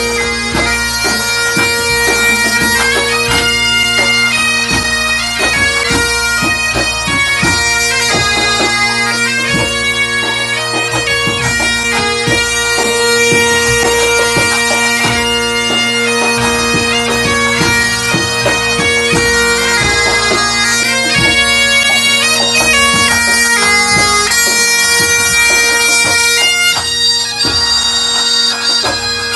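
Breton pipe band (bagad) playing: bagpipes over a steady drone carry the melody, with drum strokes underneath.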